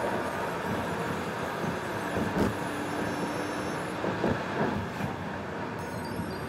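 Steady road and engine noise heard from inside a moving car: tyres on asphalt and the engine under light cruise. A few light knocks from the car going over bumps come through about two and a half seconds in and again between four and five seconds.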